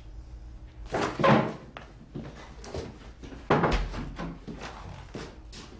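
Door sounds: a series of knocks and thuds as a door is handled and shut. The loudest strike comes about three and a half seconds in and is followed by a low rumble.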